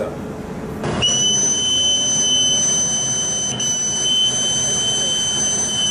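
Boatswain's call blown into the ship's broadcast handset: one long, steady, shrill high note that starts about a second in and dips slightly in pitch as it ends. It is the naval pipe sounded ahead of a shipwide announcement.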